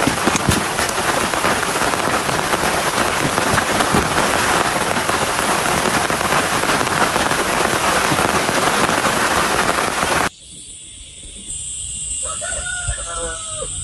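Heavy rain pouring steadily, cutting off suddenly about ten seconds in. Near the end a rooster crows once over quieter background.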